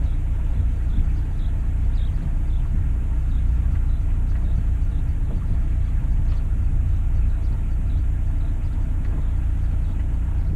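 Sailboat's engine running steadily as the boat motors slowly into its berth: a low, even rumble.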